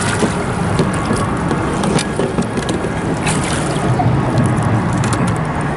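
Water splashing as a channel catfish thrashes in a landing net at the surface and is lifted out of the river, with a few sharp splashes. Under it runs a steady rushing background noise.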